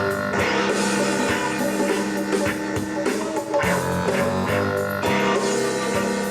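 Rock music with guitar and drums playing back from a cassette tape on a TEAC V-5RX stereo cassette deck.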